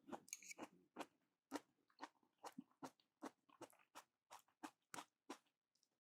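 Faint, irregular sharp crackles and clicks, about two or three a second.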